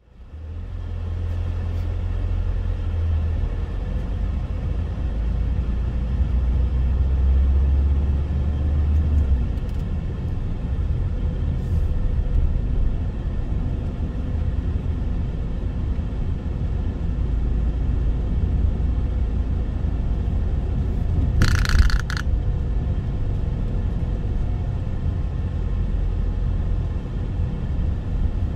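Small car driving, heard from inside the cabin of a Citroen C3: a steady low rumble of engine and tyres on the road. About three-quarters of the way through there is one short hiss, lasting under a second.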